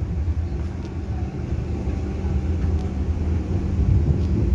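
Interior of an FGC series 115 electric multiple unit in motion: a steady low rumble with a constant hum underneath.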